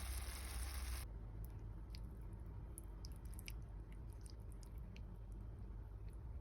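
Food sizzling in a pan for about a second, cutting off abruptly. After that come faint scattered clicks and soft wet sounds over a low hum.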